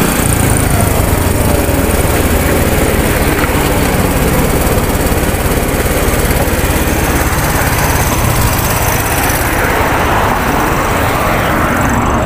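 Motorcycle engine running steadily while riding at road speed, with wind rushing over the microphone.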